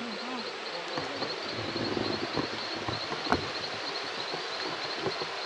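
Steady rush of flowing water with a high, pulsing insect chorus trilling throughout, and one sharp click about three seconds in.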